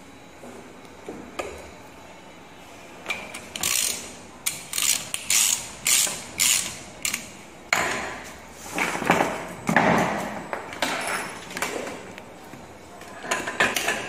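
Ratchet wrench clicking in repeated short strokes, then louder, coarser strokes, as the bolt of an insulation piercing connector is tightened onto a cable.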